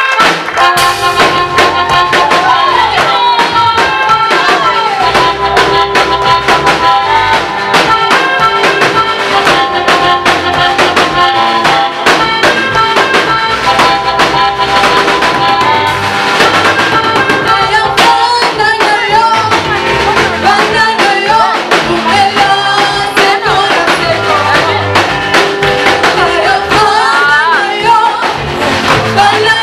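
Swahili gospel praise song: voices singing over a band with drums and a steady beat.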